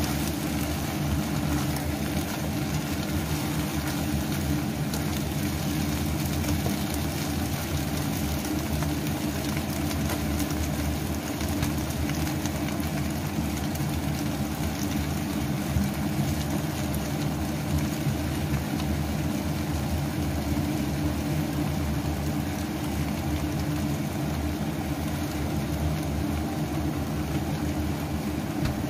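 Steady low hum of a kitchen appliance fan, unchanging throughout, over napa cabbage sizzling and steaming in a hot wok as a spatula stirs it.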